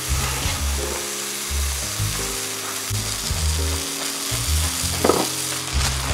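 Hamburger patty sizzling in a cast-iron skillet, a steady frying hiss, over background music with a stepping bass line.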